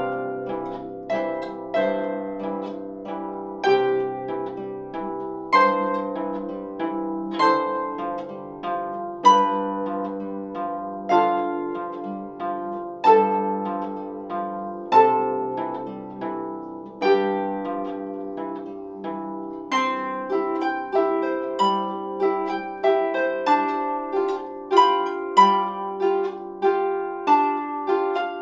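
Solo lever harp playing a waltz: a plucked melody over low chords, each note ringing and decaying, with a strong accent at the start of each bar about every two seconds.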